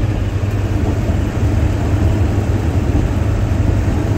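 Steady road and engine noise inside a moving truck's cab: a low drone with tyre and wind hiss over it.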